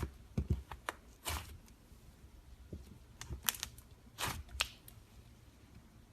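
Clear slime being mixed and squished by hand, giving irregular sticky clicks and squelches.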